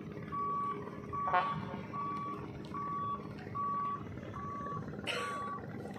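A backup alarm beeping in a single steady tone, about seven even beeps a little over one a second, over a low steady hum.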